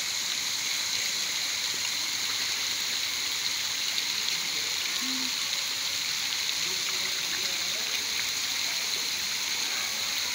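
Steady splashing and churning of water as a dense crowd of koi thrashes at the pond surface for food, with faint scattered ticks of small splashes.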